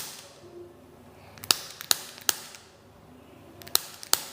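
Sharp spinal joint cracks during chiropractic manipulation of the lower back: six short cracks at irregular spacing, one at the very start, three in quick succession about a second and a half in, and two more near the end.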